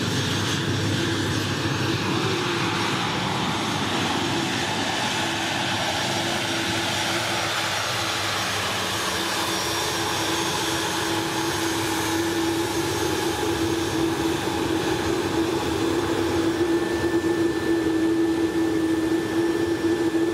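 Jet aircraft engine running steadily: an even rushing noise with a steady low hum that grows stronger in the second half.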